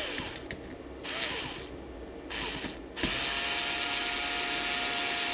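A cordless driver running at the CNC's drag-chain cable stays: short rattling handling noises in the first few seconds, then a steady motor whine for about three seconds from about three seconds in.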